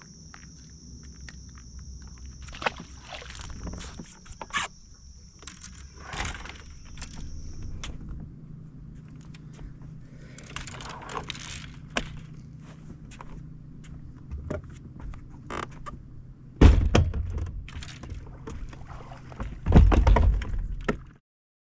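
Insects trilling in one steady high note for the first several seconds, then scattered knocks and thunks on a bass boat's deck over a low steady hum, with two loud thumps near the end.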